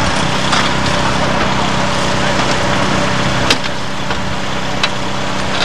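Gasoline power unit of a hydraulic rescue tool running steadily, with a few sharp metallic clicks and knocks over it, the sharpest about three and a half seconds in.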